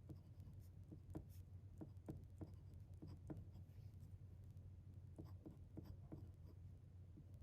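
Faint scratching of a pen nib on paper in irregular short strokes, writing or swatching with fountain pen ink, over a low steady hum.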